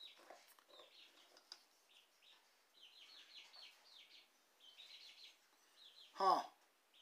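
A small bird chirping repeatedly in short, high, falling chirps, in quick runs. About six seconds in comes one much louder, brief call that drops sharply in pitch.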